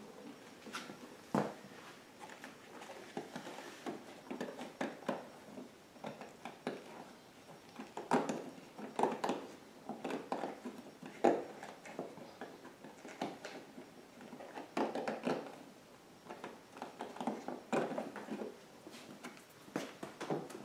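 Irregular short scraping strokes of a hand tool cleaning the burrs off a freshly drilled hole in a generator's plastic casing, coming in bursts, with a sharp click about a second in.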